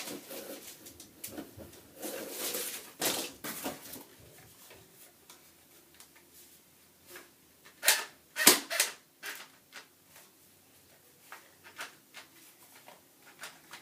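Handling of an unboxed airsoft gun and its accessories: scattered clicks, taps and rustling, with a few sharper plastic clicks about eight seconds in.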